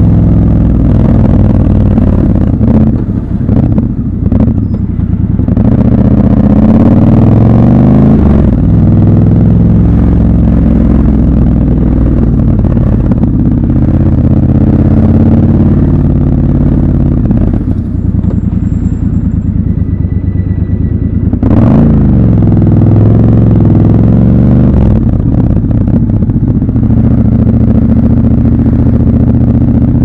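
Triumph Scrambler 1200 XC's 1200 cc parallel-twin engine running in stop-and-go traffic, heard close up from the rider's seat. The revs fall off and pick up again several times, with a quick rise in revs about two-thirds through.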